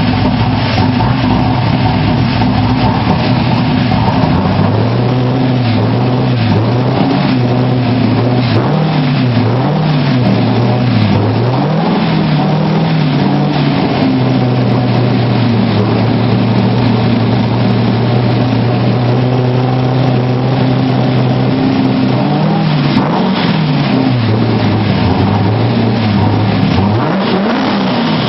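Factory Five GTM's V8 engine running through the gears with the car raised and the driven wheels spinning free. Engine speed rises and falls several times, holds steady through the middle, then rises and falls again near the end.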